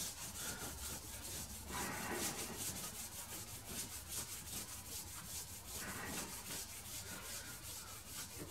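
Cloth rag rubbing over the face of a lathe faceplate as it is wiped clean, a faint, steady scrubbing.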